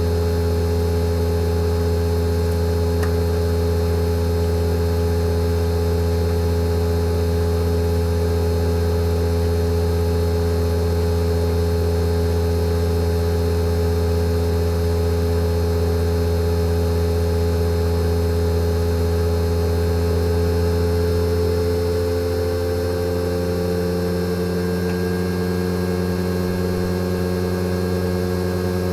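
Fujitsu General AO-C28H air-conditioner outdoor unit's inverter compressor running in defrost mode: a steady low hum with several steady tones. From about two-thirds of the way through, the hum shifts and the pitch begins to rise slowly as the compressor speed is ramped up.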